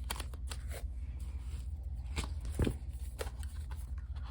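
Paper planner pages being handled and pressed onto the discs of a disc-bound Happy Planner: scattered light clicks and rustles, with one louder knock about two and a half seconds in, over a low steady hum.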